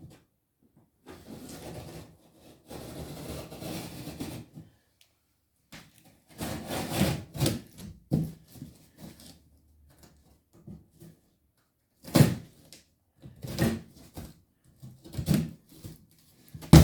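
Heavy corrugated cardboard of a large box being cut and torn open, in separate noisy strokes: two longer ones early, a louder stretch around the middle, then short, sharper strokes about every second and a half near the end.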